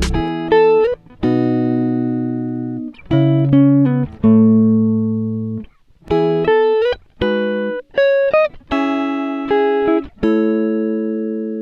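Background music: a slow plucked guitar melody of single notes and chords, each struck and then ringing away, with no drums.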